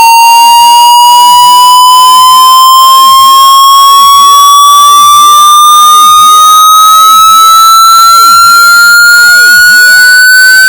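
Very loud hearing-test tone, a single electronic pitch with harsh overtones that glides slowly and steadily upward the whole time.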